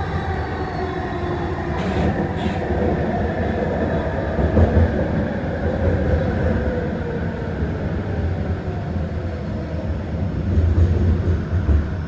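Vancouver SkyTrain car running with a steady low rumble. The whine of its linear induction motors comes in several tones that fall slowly in pitch as the train slows down.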